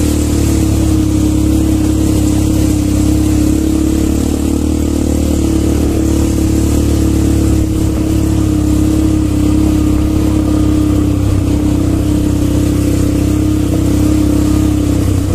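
Quad bike (ATV) engine running steadily at an even pitch, with no sharp revving.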